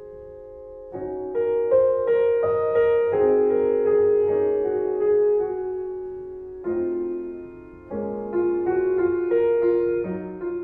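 Slow, gentle piano music: notes and chords struck and left to fade, in phrases that begin again about a second in, and near 7 and 8 seconds in.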